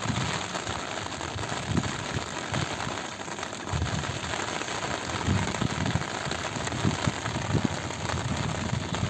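Steady rain falling on flooded paddy water, an even hiss, broken by irregular low thumps.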